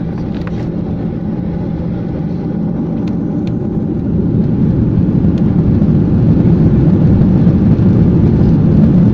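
Boeing 737-800's CFM56-7B jet engines heard from inside the cabin as a steady low rumble that grows louder from about four seconds in as thrust comes up for the take-off roll.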